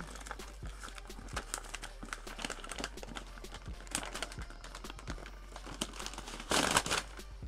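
Packaging crinkling and crackling as a mailed parcel is cut and pulled open by hand, with a louder burst of rustling lasting about half a second near the end.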